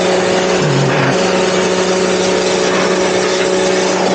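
Pressure washer running with its jet spraying: a steady motor hum under a loud hiss of water, with a brief dip in the motor's pitch about a second in.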